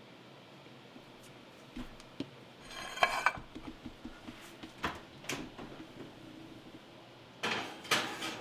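Scattered clinks, knocks and a brief rattling scrape of kitchen dishes being handled and set down, in no regular rhythm.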